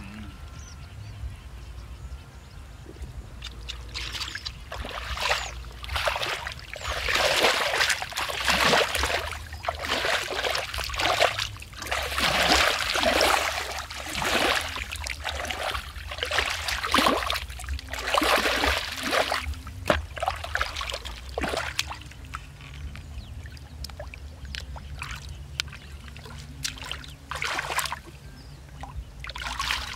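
Hands sloshing and splashing through shallow muddy water, groping for fish by hand: a long run of short splashes that thins out in the last third, with a few more near the end.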